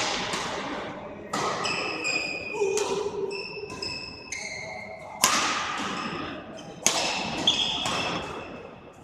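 A badminton rally: rackets strike the shuttlecock about six times, each a sharp crack that echoes in the hall. Between the strikes, shoes give short high squeaks on the court floor.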